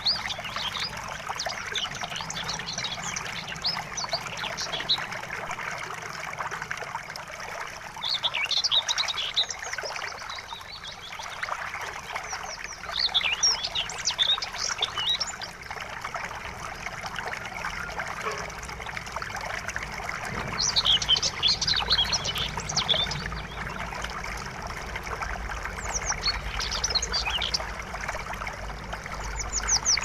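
River water running with a steady rush, and songbirds singing in clusters of quick, high chirps every few seconds.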